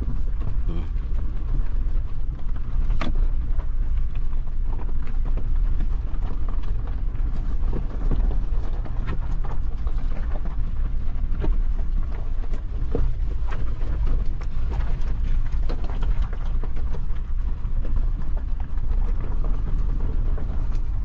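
Suzuki Jimny driving slowly over a rough, rocky off-road track: a steady low engine and road rumble, with frequent short knocks and rattles.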